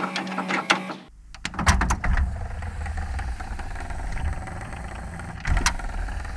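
Clicks and whirring of a VCR mechanism taking in a VHS cassette, then from about a second in a steady low rumble with a few scattered clicks and one sharp click near the end.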